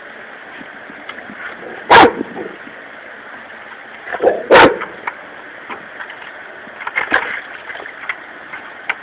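Dog barking: two loud barks about two and a half seconds apart, with a few quieter short barks near the end.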